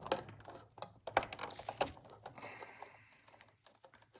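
Clicking and rustling of stiff electrical wires and plastic wire nuts being handled as bundled neutral wires are untied and pulled apart, in irregular clusters of short clicks.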